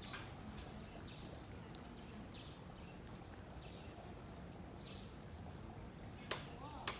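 Footsteps at a steady walking pace, a soft shoe scuff about every two-thirds of a second, over a faint low hum of street background. Two sharp clicks about half a second apart near the end.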